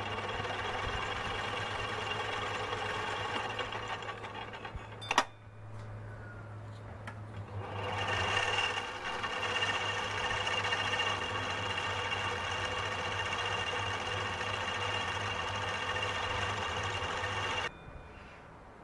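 Small metal lathe running, its faceplate spinning as a hole is bored out: a steady motor whine with a sharp knock about five seconds in. The cutting sound grows louder about eight seconds in, and the lathe is switched off about a second before the end.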